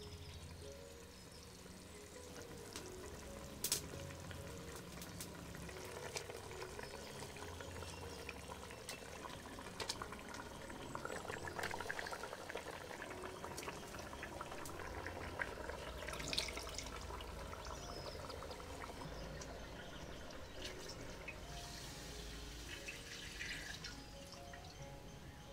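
Curry being stirred and ladled in a clay pot, with small clicks and liquid sounds. Near the end, a stream of coconut milk is poured into the pot. Soft background music plays throughout.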